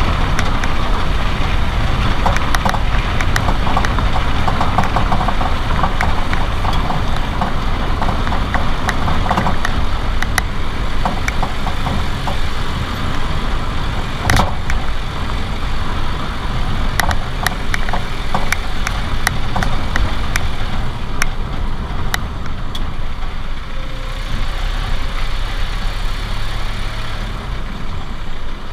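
Renault Duster 4x4 suspension knocking irregularly on the passenger side as the car moves, over steady engine and road noise, with one stronger knock about halfway. The owner says the noise remains even with new strut kits (bump stops, boots and top mounts), stabilizer link and sway-bar bushings.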